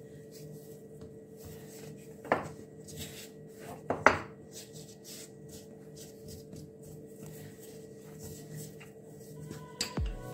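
Two sharp knocks about two seconds apart as kitchen tools are set down on a wooden pastry board, with quiet handling of floured dough between them.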